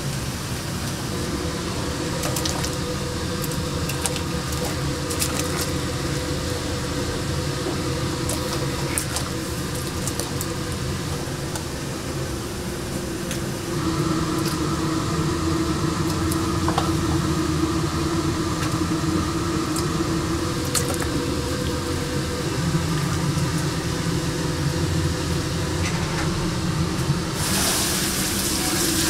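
Water and liquid sounds in a kitchen: a steady rushing or bubbling hiss over a constant hum, with scattered sharp clicks and clinks. The sound changes about halfway through, when a steady whine joins in, and again near the end, when the hiss grows brighter.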